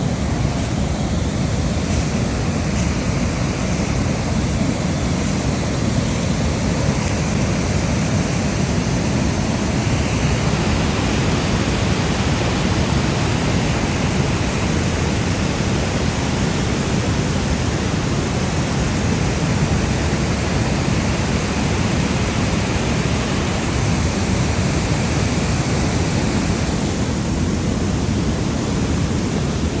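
Waterfall: a steady, unbroken rush of falling water, heaviest in the low range.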